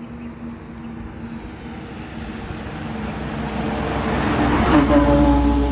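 A large truck passing close by on a highway: its road and engine noise builds up steadily and peaks about five seconds in as it goes past.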